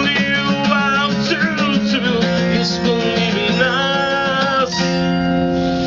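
Strummed acoustic guitar accompanying a voice singing long, wavering held notes. About five seconds in, the singing stops and the song ends on a final ringing chord.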